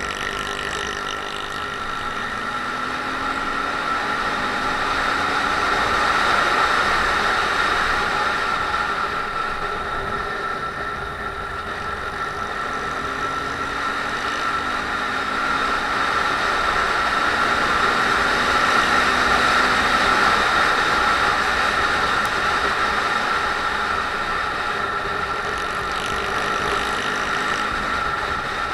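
Honda MSX125's single-cylinder four-stroke engine running under way, rising in pitch a few times as it accelerates, under a steady rush of wind and road noise.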